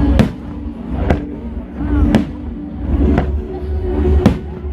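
Fireworks bursting, five sharp bangs about a second apart, over music.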